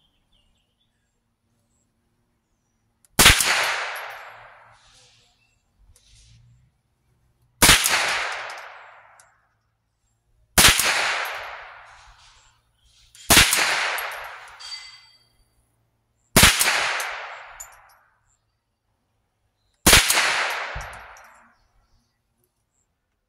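Stevens 87A .22 rimfire semi-automatic rifle firing six single aimed shots, one every three to four seconds. Each is a sharp crack followed by a long echoing tail.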